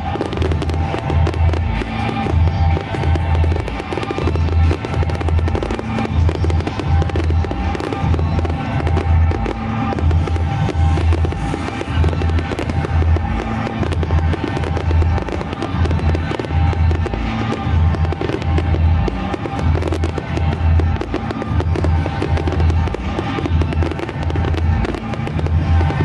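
Fireworks display: many aerial shells bursting in quick succession, with a dense, continual crackle of bangs, over loud music with a regular beat.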